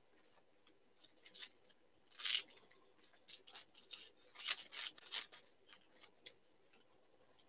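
Trading-card pack wrapper being torn open and crinkled by hand: a few short, faint rustling tears, one about two seconds in and a cluster around four to five seconds.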